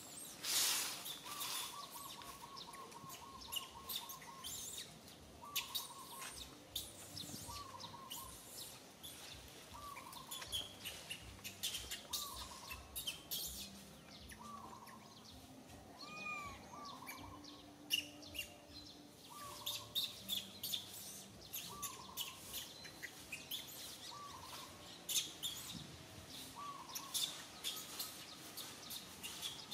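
Infant macaque crying to nurse: a quick stuttering run of short calls about a second in, then single short, arched cries repeated every second or two. Faint clicks and chirps sound in the background.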